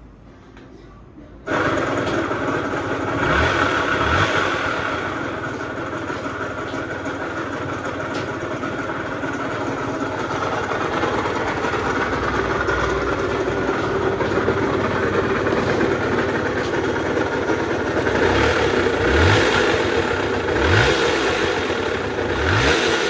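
Yamaha Mate 50 moped engine starting about a second and a half in, then running with several short throttle blips early on and near the end. Its running noise comes from a worn crankshaft bearing.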